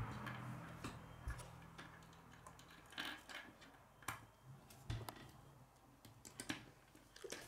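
Plastic K'nex rods and connectors clicking and tapping as they are handled and snapped together by hand, a scattering of separate small clicks. A faint low hum stops about two and a half seconds in.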